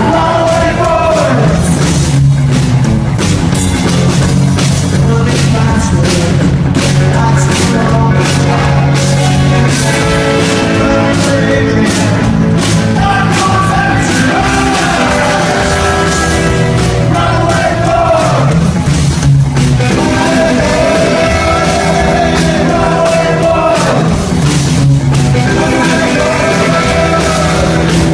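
Live rockabilly trio playing loud: electric guitar, upright bass and drums, with a lead vocal over them.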